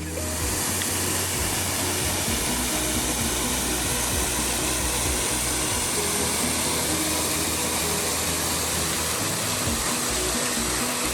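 Steady rushing of a waterfall, a loud even roar, with background music playing over it.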